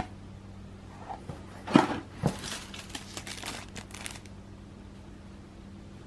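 Two sharp knocks followed by a couple of seconds of crinkling and rustling, like something being handled, over a steady low hum.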